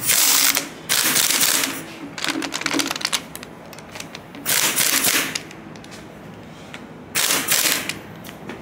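Impact wrench hammering in five short bursts on the primary shaft of a Twin Disc MG509 marine transmission, driving the bearing further down onto the shaft.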